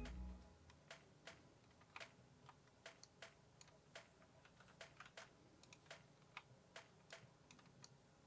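Faint, irregular clicking of a computer keyboard and mouse, about two clicks a second.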